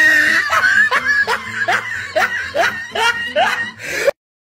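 A person laughing in a run of short, rising 'ha' sounds, about two or three a second, cut off suddenly near the end.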